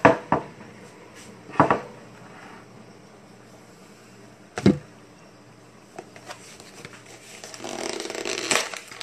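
A few sharp knocks and clicks of things being handled, then, from about three quarters of the way through, a growing rustle of a cardboard box being handled and opened.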